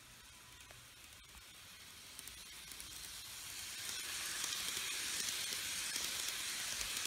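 TOMIX N gauge E3 series Komachi model train running on its track: a steady hissing rush of wheels and motor that grows louder as the train approaches and stays loud while it runs close by.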